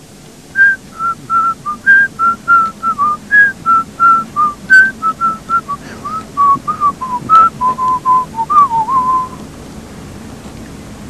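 A man whistling a tune: a run of short notes that drift gradually lower in pitch, stopping about nine seconds in.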